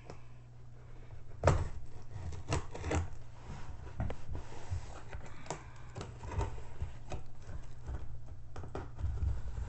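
Knife slitting packing tape on a cardboard shipping box: scraping along the tape with scattered taps and knocks as the blade drags and the box is handled, the loudest knock about a second and a half in.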